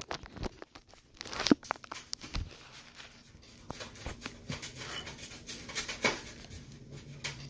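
Handling noise close to the microphone: scattered rustles, clicks and knocks as the recording device is shifted and propped up, with the loudest knocks about a second and a half in and again near six seconds.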